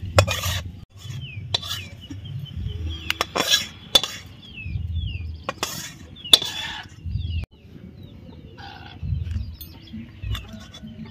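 A metal spatula scraping and knocking against a black wok and a steel bowl as sticky coconut-jaggery mixture is scraped out, with several sharp clinks. Birds chirp in the background with short falling calls.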